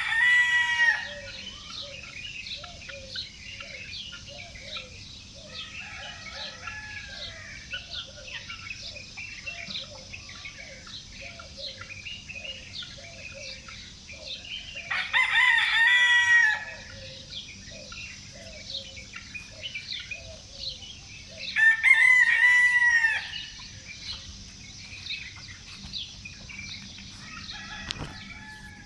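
A rooster crows, one crow ending about a second in, another about 15 seconds in and a third about 22 seconds in, each lasting about a second and a half. Between the crows, small songbirds twitter without pause and hens cluck softly.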